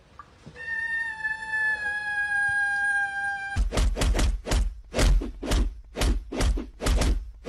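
A cat's single long, steady "aaaa" cry, held about three seconds and sagging slightly in pitch. It is followed by a rapid run of loud, rough noise bursts, two to three a second.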